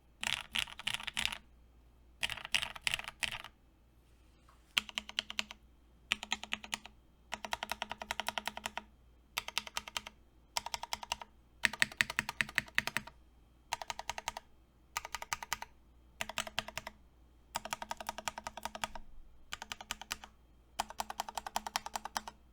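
Typing on a plateless 21XX custom mechanical keyboard with lubed Cherry MX Black Hyperglide linear switches, a fast run of key clicks in bursts of about a second with short pauses between them.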